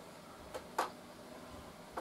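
Two light clicks about a quarter second apart, a little under a second in, the second one sharper: a small square being handled against the table saw's blade and top, over faint room tone.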